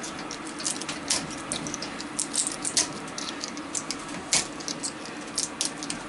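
A pointed metal tool scraping and clicking against a ceiling fan's stator as the copper windings are pried up out of its inner slots. The clicks are light and irregular, with one sharper click about four seconds in.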